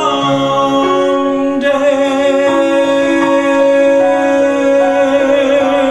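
Male singer holding one long note with vibrato on the word "together", over piano accompaniment whose chords change beneath it.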